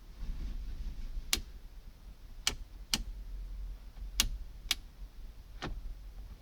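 Six sharp clicks at uneven spacing, some in pairs about half a second apart, from switches in a 1994 Fiat Uno's dashboard being flipped on and off to test the newly fitted gauge cluster's lights, with the ignition on and the engine not running.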